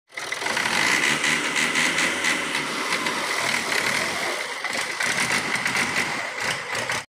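New Holland Al-Ghazi tractor's diesel engine running as the tractor is driven slowly, with a steady high whine above the engine note.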